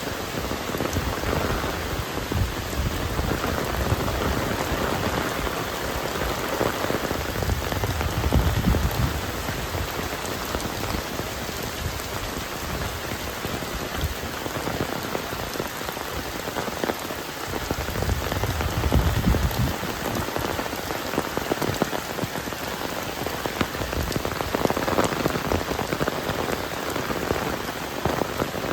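Heavy rain falling steadily, with a dense patter of individual drop impacts. A low rumble swells twice, about eight seconds in and again about nineteen seconds in.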